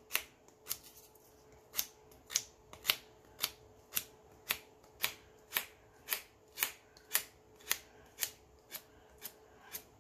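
Gator hand sander scraped in short strokes down the edge of scrapbook paper glued onto wood, about two strokes a second, sanding through the paper to trim it flush with the wood's edge.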